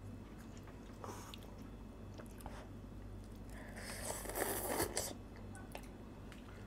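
A person slurping instant noodles off a plastic fork: one noisy slurp about four seconds in that lasts about a second, with quiet chewing and a few small clicks around it.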